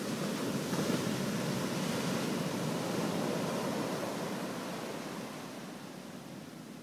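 Ocean surf breaking and washing up onto a sand beach, a steady rushing that eases off near the end.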